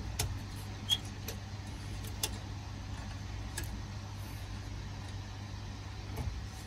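A few light clicks and taps of plastic and metal parts as an HP ProLiant DL380p G8 server's riser cage and latches are handled and locked in inside the open chassis, over a steady low hum. The sharpest clicks come about a second in and just after two seconds.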